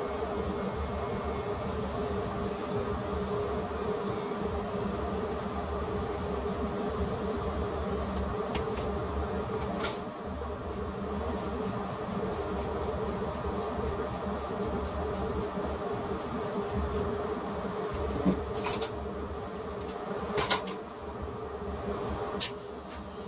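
Electric hair clippers buzzing steadily while cutting hair on a head, with a few sharp clicks in the second half.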